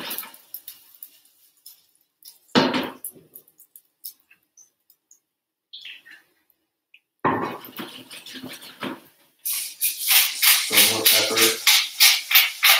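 Frying pan and cooking utensil handled on a stovetop: a few separate clatters, then a fast, even rattle of about four or five strikes a second for the last few seconds.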